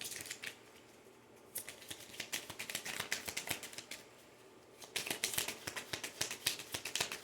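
A deck of tarot cards being shuffled by hand: two bouts of quick, dense clicking and riffling with a short pause between them.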